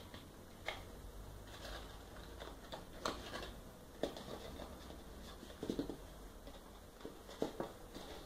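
Cardstock box being handled: faint paper rustling with a few light taps and scrapes as a paper insert is worked inside the box.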